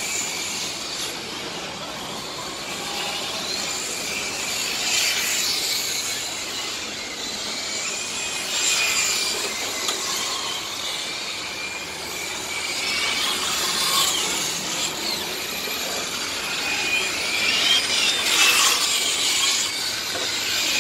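Radio-controlled model race cars lapping a track: a high-pitched whine from several cars at once, swelling and fading again every few seconds as cars pass by.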